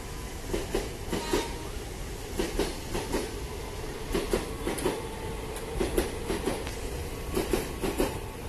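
Ex-Tokyo Metro 5000-series commuter electric train rolling slowly past, its wheels clicking over the rail joints in quick pairs about once a second over a steady rumble.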